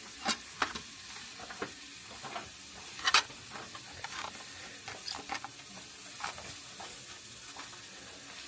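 Food sizzling in a frying pan, with scattered sharp clicks and scrapes of stirring; the loudest clicks come near the start and about three seconds in.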